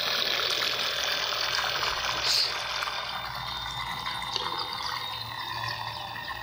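Homemade balsa RC boat running at speed, its motor giving a steady high whine over the hiss of the propeller churning water, fading a little as the boat moves off.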